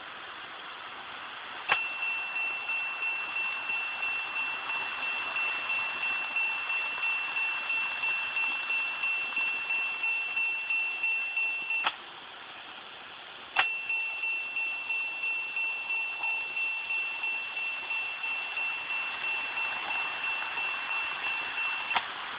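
KATO Unitrack N-gauge automatic level crossing (old model) sounding its electronic warning bell, triggered by passing trains: a high steady tone beating about twice a second. It switches on with a click about two seconds in, cuts off about halfway through, restarts a couple of seconds later and stops just before the end. Underneath is the steady whirr of N-gauge model trains running on the track.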